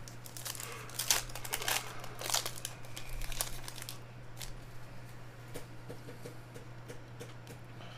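Foil wrapper of a trading-card pack being torn open and crinkled by hand, busiest in the first half. From about four seconds in, quieter light clicks as the cards are slid out and handled.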